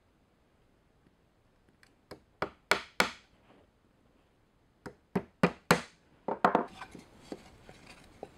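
Claw hammer driving a nail into a cedar fence-picket board. Starting about two seconds in, there are four blows that go from a light tap to hard strikes. After a short pause come four more, building the same way, then a quick flurry of strikes and a few light taps.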